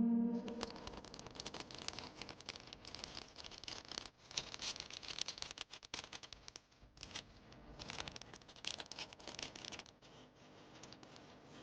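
Packing materials being handled: rapid rustling, crinkling and scratching of wrapping, with brief lulls and a quieter stretch near the end.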